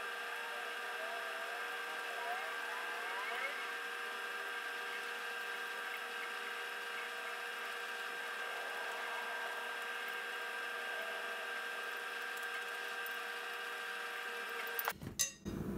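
Steady machine hum made of several fixed pitches over a light hiss, as from a fan or appliance motor, with a few faint wavering chirps in the first few seconds. The hum breaks off abruptly about a second before the end.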